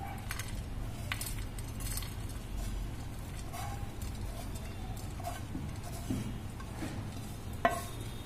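Wooden spatula scraping the crumbly date and nut ladoo mixture out of a pan onto a plate, with scattered light clinks and scrapes and a sharper knock near the end.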